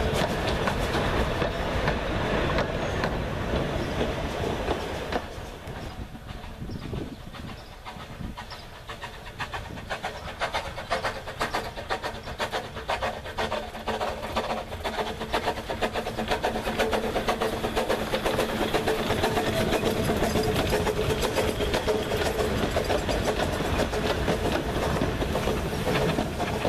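Narrow-gauge steam train, the locomotive Dolgoch with its vintage four-wheeled carriages, running past with a rapid clatter of wheels over the rail joints. The sound falls away about five seconds in, then builds again as the train comes closer and passes.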